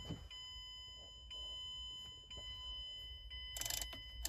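A car's electronic warning tone sounding steadily, with the ignition on and the battery just reconnected. A brief jangle of keys comes near the end.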